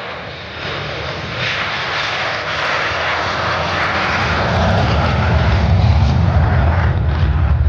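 Jet roar of an F-35C Lightning II's single Pratt & Whitney F135 turbofan, growing steadily louder as the jet approaches, with a heavy low rumble building toward the end.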